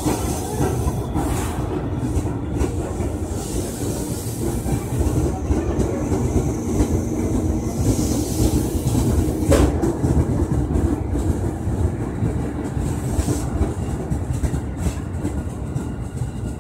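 Commuter electric train (ex-JR 205 series multiple unit) rolling slowly past along the platform: a steady rumble with wheels clacking over rail joints and a faint low hum. A single sharp clank comes about ten seconds in, and the clacks come quicker near the end.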